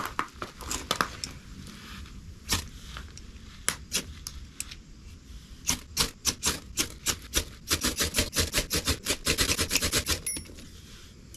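Dry twigs and small sticks being snapped by hand for kindling: scattered sharp cracks, then a rapid run of snaps in the last few seconds.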